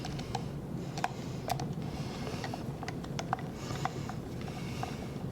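Light, irregular metal clicks and ticks of a screwdriver driving the Phillips head screws back into the motherboard 'puck' of a Fisher FIELDVUE DVC6200 digital valve controller, over a low steady background hum.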